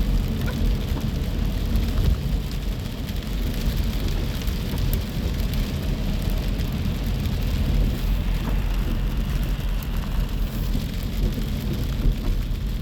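Storm wind and rain: gusting wind buffeting the microphone as a deep, steady noise, with scattered sharp ticks of rain.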